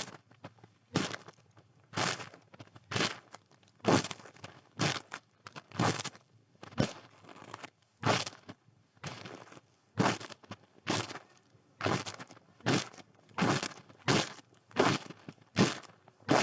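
Footsteps crunching through snow at a steady walking pace, about one crunchy step a second.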